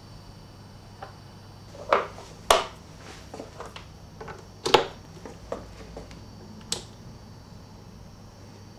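Clicks and knocks of a guitar cable's jack plug being pushed into a small Vox practice amplifier's input and a hand working the amp's top panel: a handful of sharp clicks, the loudest about two seconds in, another half a second later and one near five seconds in, then a single sharp click a couple of seconds later. A steady low electrical hum sits underneath.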